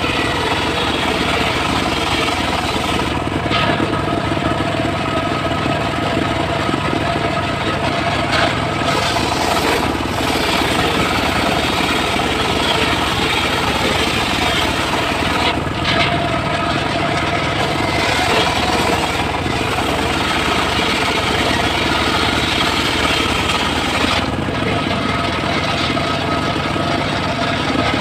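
Circular saw machine running steadily while cutting mahogany wood: a continuous mechanical din with a high hiss from the blade. The hiss dips briefly a few times.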